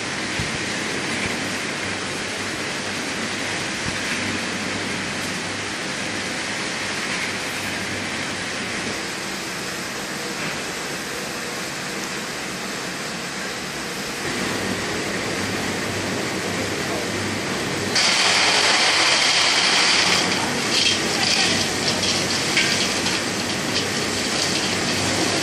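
Stainless steel drum nut frying machine: oil sizzling around a batch of frying nuts over a steady electrical hum. About 18 seconds in it turns suddenly louder and brighter, a crackling rattle as the fried nuts pour out of the tipped drum into a steel bowl.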